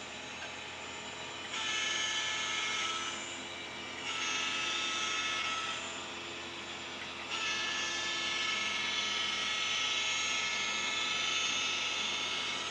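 Model diesel locomotive's sound-system horn blowing three blasts, the last one the longest, over a steady running hum as the model train approaches.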